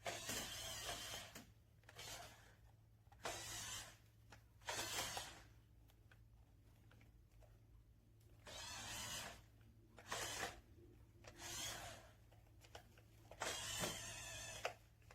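Small electric motors and gears of a remote-control toy shark car whirring in about eight short bursts, each half a second to a second and a half long, as it is driven in stops and starts.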